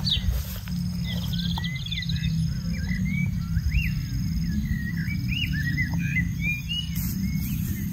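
Small birds chirping in many short rising and falling calls, with a brief rapid trill about a second in, over a steady low rumble.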